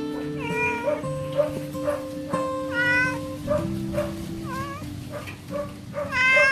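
A domestic cat meowing repeatedly, four meows spaced about one and a half to two seconds apart, the last one near the end the loudest, over background music.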